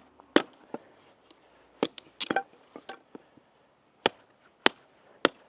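Small hatchet chopping firewood: sharp, separate knocks of the blade into wood, a few in quick succession and then spaced out about every half second.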